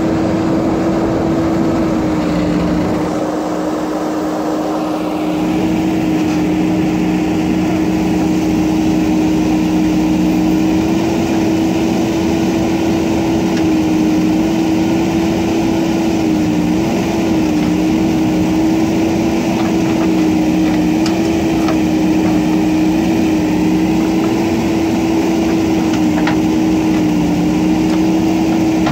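JCB backhoe loader's diesel engine running steadily at working speed, its pitch dipping slightly a few times.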